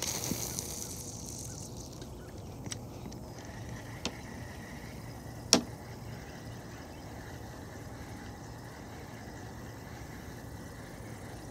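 Fishing gear being handled on a kayak. A short hiss at the start, then three sharp clicks or knocks, the loudest about five and a half seconds in, over a steady low background noise.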